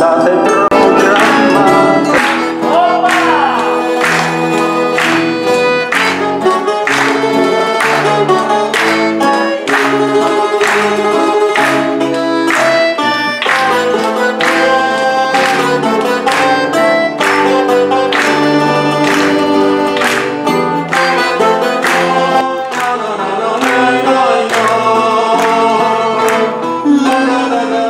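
Small acoustic band playing live: nylon-string guitar, double bass and accordion in a steady rhythm of plucked chords.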